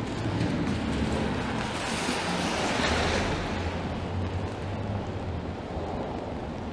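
Traffic on a rain-soaked city street: a steady hiss of tyres on wet pavement that swells as a vehicle passes about two to three seconds in, over a low engine rumble.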